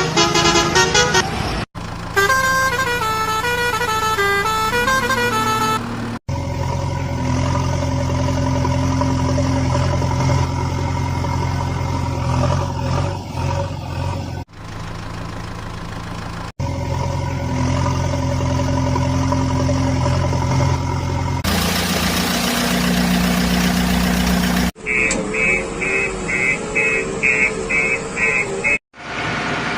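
Electronic toy-vehicle sound effects played one after another: a short beeping tune, a long steady engine rumble, a hissing horn blast, then rapid high beeps, with brief gaps between them.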